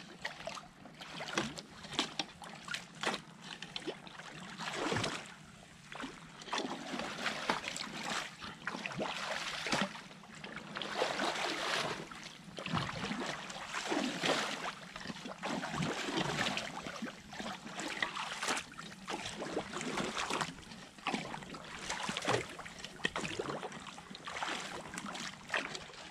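Creek water splashing and sloshing in repeated, irregular bursts as sticks and mud are pulled out of a beaver dam.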